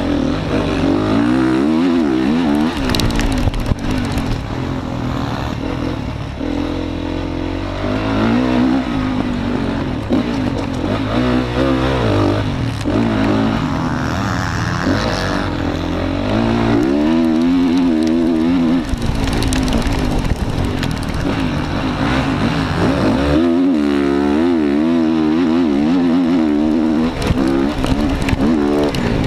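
Motocross bike engine heard close up from a camera mounted on the bike, revving up and down over and over as the throttle is worked through turns and straights.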